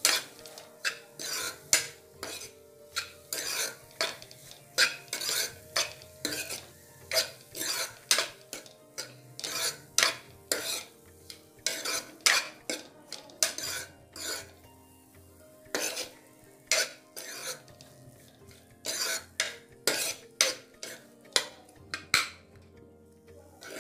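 Steel ladle stirring sweet corn and chopped vegetables around a pan, clinking and scraping against the pan about twice a second, with a couple of short pauses.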